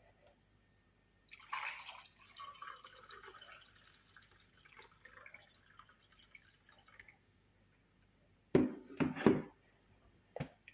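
Liquid pouring and splashing into a container for about six seconds, then a few sharp knocks near the end as something is set down.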